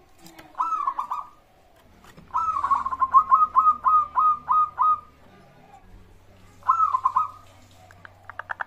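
Zebra dove (perkutut) song: short cooing phrases, including a long run of about nine quick, evenly repeated notes, then a faster rolling run near the end.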